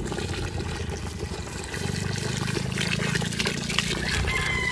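Coconut milk pouring in a steady stream from a plastic bag into a pot of cooking glutinous rice and mung beans, splashing onto the thick mixture. A thin high tone sets in near the end.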